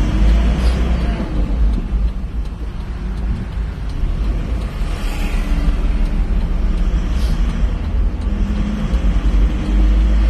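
Isuzu 4JJ1 diesel vehicle on the move: a steady low engine and road rumble.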